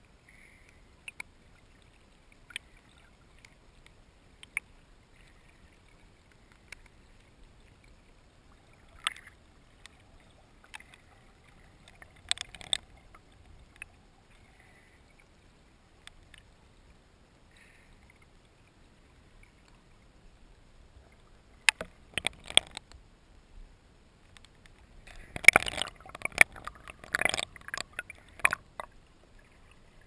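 Muffled sound of water around an underwater camera: mostly quiet with scattered sharp clicks, then bursts of splashing and crackling water near the end as the camera comes up to the surface.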